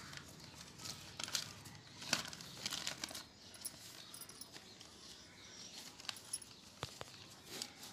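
Fingers and fingernails working through hair while picking nits, making irregular faint rustles and small crackling clicks, with one sharper click near the end.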